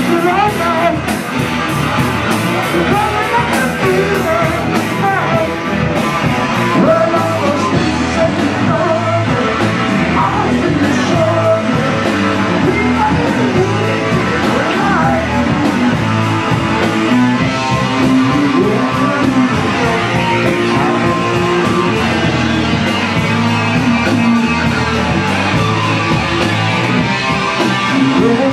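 Live rock band playing a song at full volume: electric guitar, a drum kit and a singing voice, continuous throughout.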